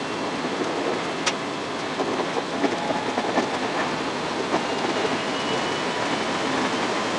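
521 series electric train running on the line, heard from inside the front car: steady running noise with scattered clicks of the wheels over the rails, one sharp click about a second in.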